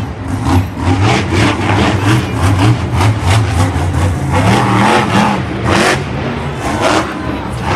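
Monster truck's supercharged V8 revving hard, the pitch rising and falling as the throttle is opened and closed in bursts.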